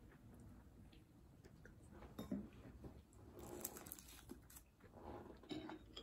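Faint crinkling of the plastic film wrapped round a slice of cake as it is handled and pulled at, with a few light clicks.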